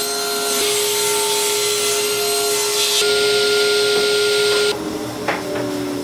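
Woodworking power tool running steadily with a whine, then switched off a little over four and a half seconds in and winding down, its pitch slowly sinking, with a couple of clicks.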